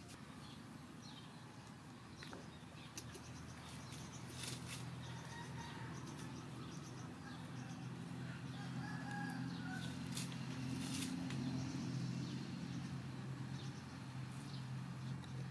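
Rural yard ambience: a rooster crowing faintly around the middle, over a steady low hum that grows a little louder, with a few light clicks.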